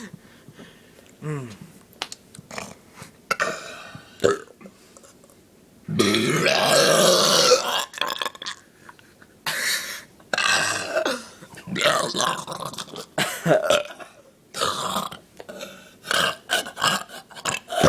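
A person burping loudly on purpose, several times. The longest and loudest burp comes about six seconds in and lasts nearly two seconds, with shorter burps and bursts before and after it.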